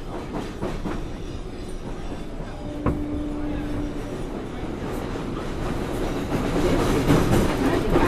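MTA R142A subway car running on the 4 line, heard on board with its HVAC off: a steady rumble of wheels on rail with rail-joint clicks. A sharp click and a brief steady tone come about three seconds in, and the noise grows louder over the last two seconds.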